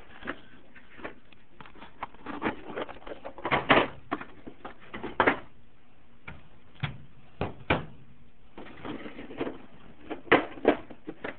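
Metal hand tools clinking and clanking as they are handled in a steel toolbox drawer: irregular sharp knocks scattered throughout, the loudest about four seconds in.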